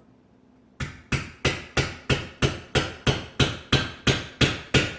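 A hammer repeatedly striking a nail to punch a hole through a metal mason jar lid: about thirteen sharp, ringing blows at a steady rate of about three a second, starting about a second in.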